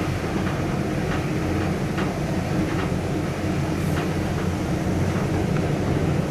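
1975 KONE inclined traction elevator running, heard from inside the cab: a steady low rumble with faint, irregular clicks.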